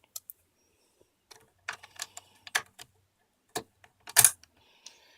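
RAM module being unlatched from and pushed back into its memory slot: a series of short, sharp clicks, the loudest pair about four seconds in.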